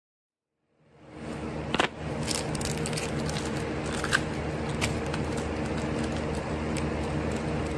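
Silence for about the first second, then a steady mechanical hum fades in and holds, with scattered light clicks and taps over it.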